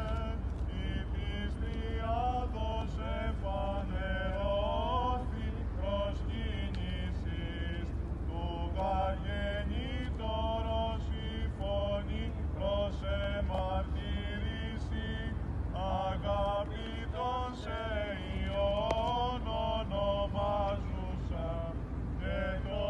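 Orthodox clergy chanting a Byzantine hymn in melodic phrases with short breaks, over a steady low rumble.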